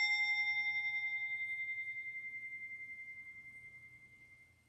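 A hand-held prayer bell rings out from a single strike, its clear tone fading slowly with a slight pulsing waver until it has almost died away near the end. It is rung to mark the start of the prayers.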